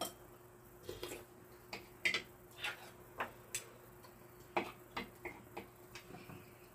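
Irregular light clicks and taps of metal chopsticks and a spoon against ceramic bowls while people eat, about a dozen in all, with a faint steady hum underneath.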